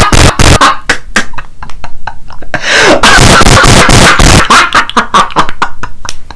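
Deliberately overdriven, clipped close-mic mouth sounds: a man's strained, distorted yelling and grunting mixed with rapid loud clicks and crackles.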